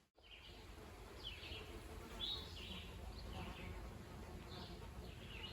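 Birdsong: short chirping notes repeating every second or so over a faint low wind rumble.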